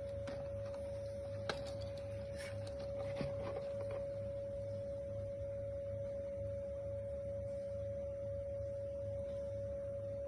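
A steady, unchanging pure test tone played as the sound source for a sound-insulation test, with a few light clicks and knocks in the first four seconds over a low background hum.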